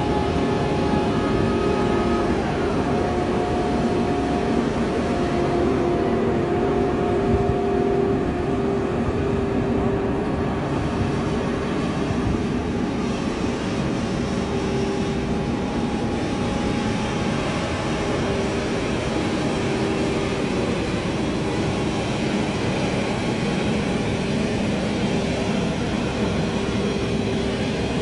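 Ship's deck crane hoisting a grab bucket out of the cargo hold: a loud, steady machinery hum with a held whine on top.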